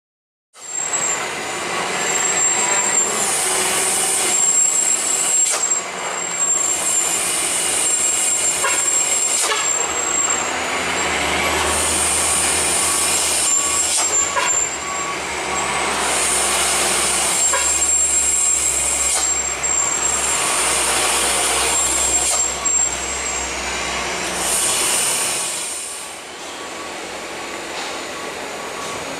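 Heavy diesel tanker truck going down a steep mountain road: the engine rumbles steadily, with short hisses of air from the brakes repeating every few seconds as it holds its speed on the descent. About three-quarters of the way through it drops to a quieter truck sound.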